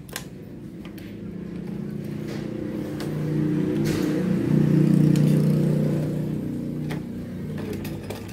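Janome 680 sewing machine worked by a foot treadle, stitching a buttonhole. A mechanical hum builds over a few seconds, peaks in the middle and fades, with a few sharp clicks.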